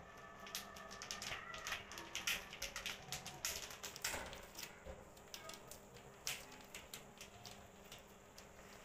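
Irregular light clicks, taps and clinks as hands handle things inside an aluminium pressure cooker with a perforated separator, thickest in the first half. A faint wavering high tone runs under the first two seconds.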